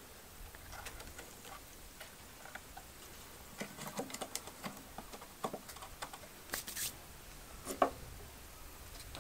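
Light clicks and taps of a loose piece of weathered wood being handled and fitted against the broken felloe of an old wooden wagon wheel, with a short scrape and one sharper knock near the end.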